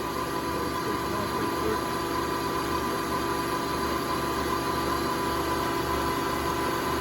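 Amada HA250W horizontal bandsaw running steadily: an even machine hum with several steady whining tones held throughout.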